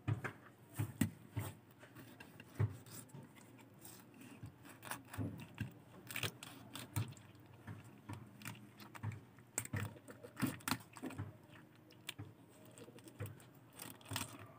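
Irregular small clicks and taps of a kitchen knife cutting into and gutting a fish on a wooden block.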